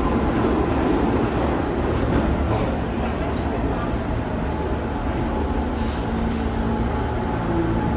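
New York City subway train, a steady running noise with a low hum and a few faint steady tones.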